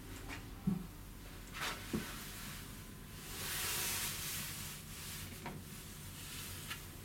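Steady low hum of the ship's machinery and ventilation in a small cabin bathroom. It is broken by a few light knocks, about a second in and again at two seconds, and by a brief rise of hiss about three and a half seconds in.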